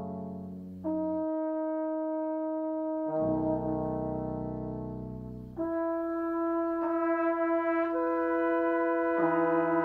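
Brass octet of trumpets, French horn, trombones and low brass playing slow, sustained chords. A new chord enters every few seconds, each fading a little before the next; a low bass part comes in about three seconds in and drops out past the midpoint.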